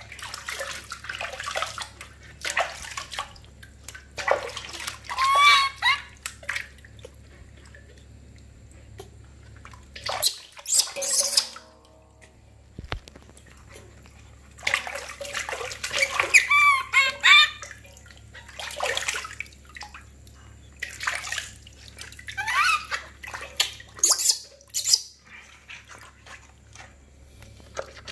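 Water splashing and sloshing in a stainless steel basin while a baby macaque is bathed, with a louder burst of splashing near the middle. The infant monkey's high, wavering cries come in short bouts several times.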